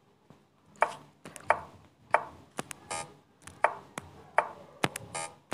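Chess app's piece-move sound effects: a run of short wooden clicks, about one or two a second, as pieces are moved move after move on the board, with a couple of softer hissier sounds among them.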